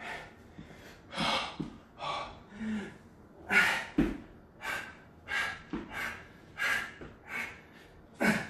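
A man breathing hard from the exertion of burpees and push-ups: short, forceful gasping breaths, about one and a half a second. A dull thump on the exercise mat about four seconds in.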